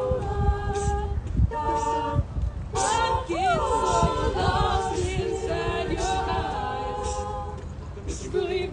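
Mixed a cappella group singing in close harmony: several voices hold chords together, and one voice swoops up and slides back down about three seconds in.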